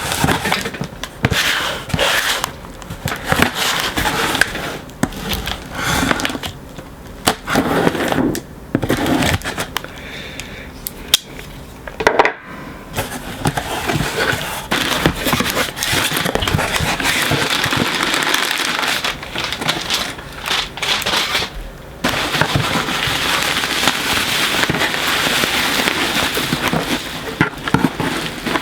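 Cardboard mystery box being opened by hand, with packing material crinkling and rustling as it is pulled out. Irregular scrapes and clicks give way, after about twelve seconds, to a long, dense crinkling rustle.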